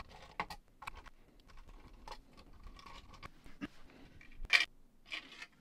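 Small screwdriver working the back-cover screws out of a plastic cassette player's case: faint scattered clicks and scrapes, with two louder plastic clacks near the end.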